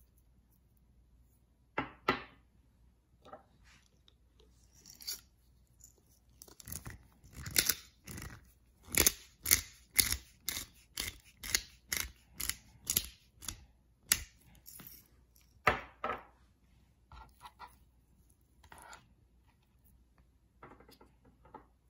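Hand-held pepper mill grinding peppercorns: a run of short grinding strokes, about two a second, for some eight seconds in the middle. A few single knocks and rustles come before and after.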